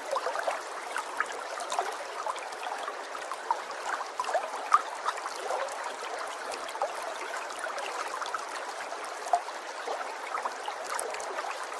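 Running water, a steady trickling with many small gurgles.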